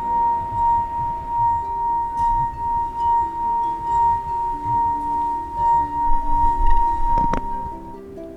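Crystal wine glass singing as a wet finger circles its rim: one steady high ringing tone that swells and fades about twice a second and stops near the end. Soft background music plays underneath.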